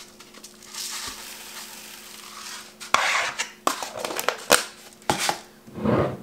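Bee pollen granules poured into a blender jar with a soft rustling hiss, followed by several sharp clinks and knocks of kitchenware.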